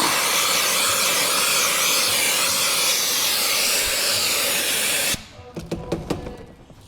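Vacuum cleaner running with a steady rushing hiss as it sucks up dirt, switched off suddenly about five seconds in, followed by a few light clicks and knocks.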